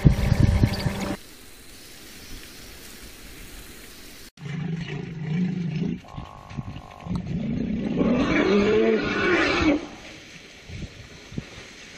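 Elephant calls. A short low call comes just after a sudden cut about four seconds in. A longer call follows, rising and then falling in pitch, lasting over two seconds. The first second holds loud, rough sounds.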